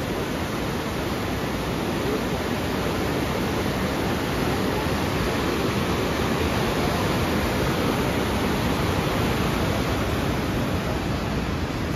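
Mountain river rushing through boulder-strewn rapids: a steady, even rush of white water.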